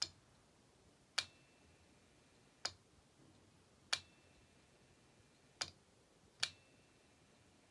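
A landline telephone being worked: about six sharp clicks, spaced one to one and a half seconds apart, some followed by a faint, brief high tone.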